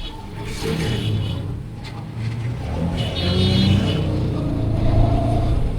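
Motor vehicle engine running as it drives along, a steady low hum that grows a little louder, with a brief high-pitched tone about three seconds in.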